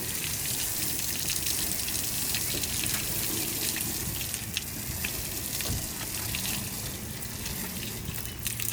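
Water spraying steadily onto a boat's gel-coat hull, rinsing dirt off the surface.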